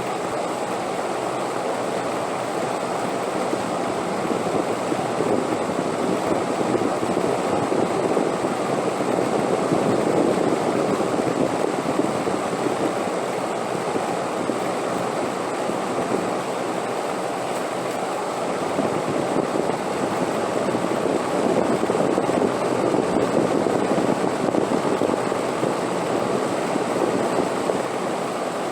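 Steady wind blowing, a continuous rushing that swells twice in gentle gusts.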